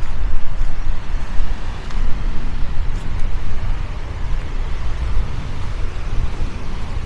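Wind buffeting the microphone in a heavy, uneven rumble, over the steady wash of small waves breaking on the shore.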